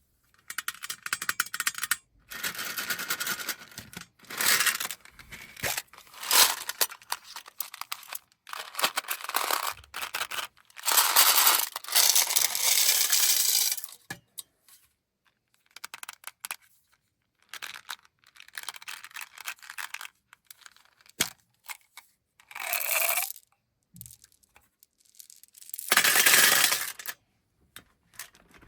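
Hard-shelled M&M's candies pouring out of their containers and scattering across a surface. They come in repeated bursts of one to three seconds, with small clicks and rattles between pours.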